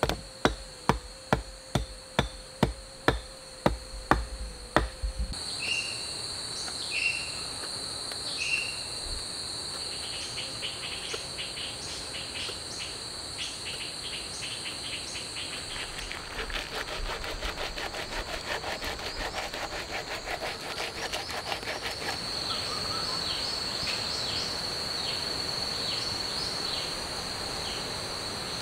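Sharp knocks about twice a second for the first five seconds, then forest ambience: a steady high insect drone, repeated short falling bird chirps, and a fast insect trill through the middle stretch.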